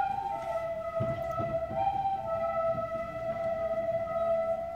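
A group of children playing recorders together in unison: a slow tune of long held notes that change pitch every second or two.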